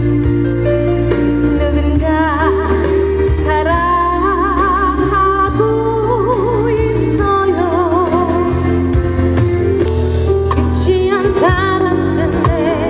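A woman singing a slow song into a microphone over backing music with a steady bass, with vibrato on her held notes.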